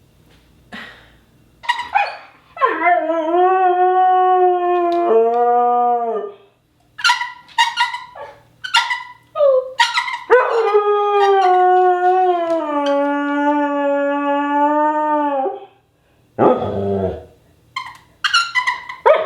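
A dog howling: two long, drawn-out howls, the second about five seconds long, with short yips and barks between and after them.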